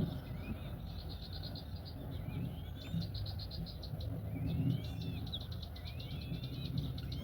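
An insect trilling in runs of fast, even pulses, with short wild bird calls sliding up and down over it and a low rumble beneath.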